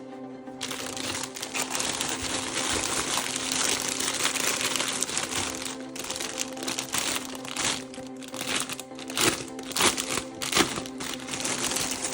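Plastic packaging crinkling and rustling, with a few sharper clicks in the second half, over steady background music.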